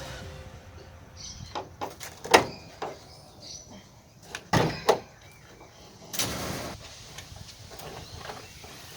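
A series of sharp knocks and clanks from work on a car, loudest a little over two seconds in and twice just before the five-second mark, with a short scraping rush about six seconds in.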